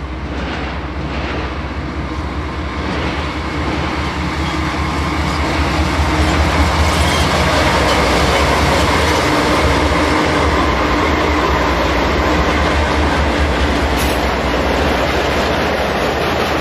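A BNSF diesel freight train passing close by: the locomotive's engine running and its wheels rolling on the rails. The sound grows louder over the first several seconds as the train approaches, then holds steady.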